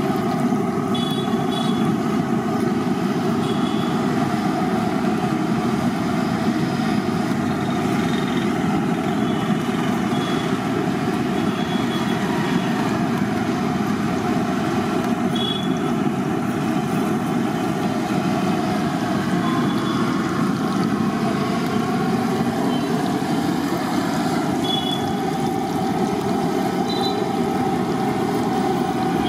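Batter fritters deep-frying in a large kadai of hot oil: a steady sizzle with an even, low rushing noise underneath.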